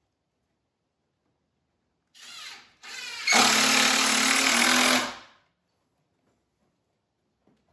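Cordless drill driving into the new 2x4 wood window framing: a short burst that rises in pitch about two seconds in, then a steady run for about two seconds before it stops.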